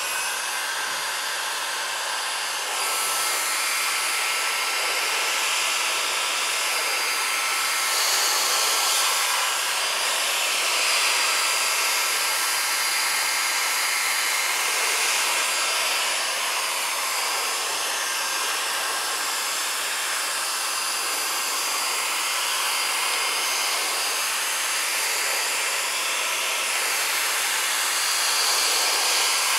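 Electric hot-air blower running continuously: a steady rush of air with a faint motor whine, the hiss swelling and fading every few seconds.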